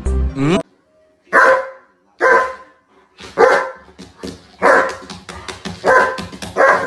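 A German Shepherd barking in play: about six loud single barks, roughly a second apart. Music cuts off just before the first bark.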